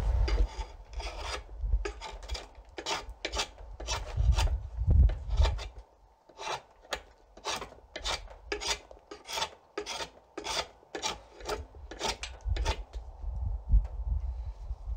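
Sharp draw knife shaving Osage orange wood from the back of a bow stave, in short scraping strokes about two a second. The strokes take away the wood above a chosen growth ring, the first rough stage of chasing a ring. The strokes thin out near the end.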